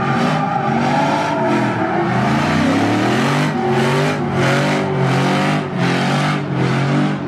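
Pickup truck engines revving hard during a burnout, with the drive tyres spinning on the pavement. The revs rise and fall, and in the second half they surge in repeated pulses.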